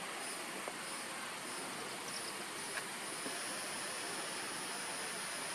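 Outdoor ambience: a high-pitched insect buzz that pulses at first and then holds steady from about halfway, over a steady hiss.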